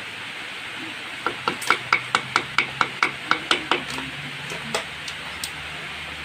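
Hammer tapping on metal during engine work: about a dozen quick, ringing metallic taps at roughly five a second, then a few slower, scattered taps.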